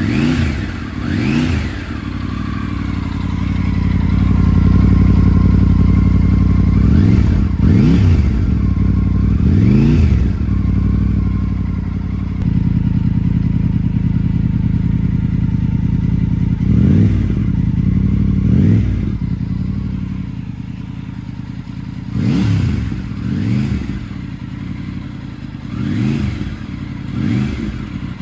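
Triumph Tiger 900's three-cylinder engine idling through its exhaust, with short throttle blips, often in pairs, each pitch rising and falling back to idle.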